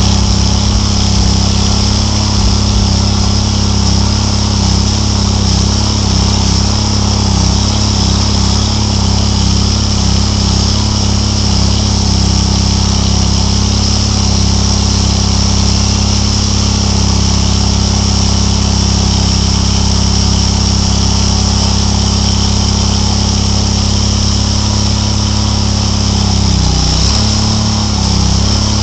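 Chainsaw running steadily at a constant pitch as its bar is held cutting into a wall. Near the end the pitch briefly wobbles and dips.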